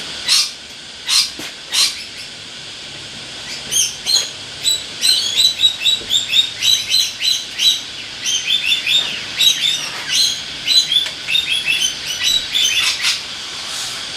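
Birds chirping: a few longer calls, then a busy run of rapid, short high chirps from about four seconds in until near the end.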